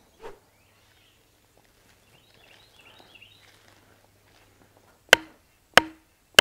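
Hatchet blows on a wooden stake: two sharp strikes about two-thirds of a second apart near the end, each with a short ring.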